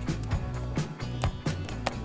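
Background music with a steady beat of about two strikes a second over deep bass notes.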